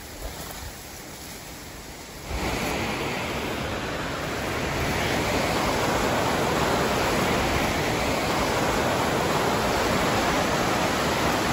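Rushing mountain creek water: a steady, even rush that cuts in suddenly about two seconds in and grows a little louder, after a quieter opening.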